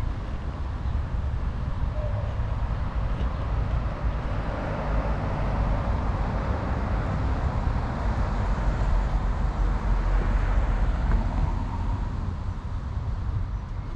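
Road traffic with a steady low rumble; one vehicle passing grows louder to a peak about ten seconds in, then fades.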